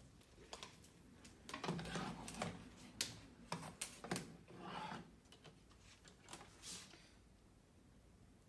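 Irregular light clicks and rustling as multimeter test leads are unwound and handled, with a few sharper clicks among them; the handling stops after about seven seconds.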